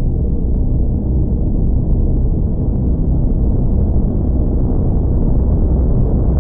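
Time-stretched 'space sound' soundscape presented as sounds from Jupiter: a loud, steady, deep rumbling drone, dense and low with no breaks.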